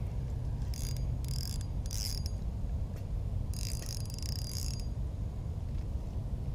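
Fishing reel being cranked in short spurts: three brief whirring bursts, then a longer one about four seconds in, as slack line is taken up while working the bait, over a steady low rumble.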